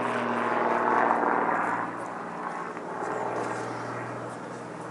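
Engine and propeller of a single-engine aerobatic propeller plane, a steady drone as it climbs away. It grows fainter after about two seconds.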